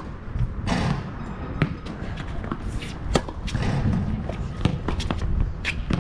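Tennis rally on a hard court: sharp pops of racket strings hitting the ball and the ball bouncing, a second or two apart, among players' footsteps and shoe scuffs.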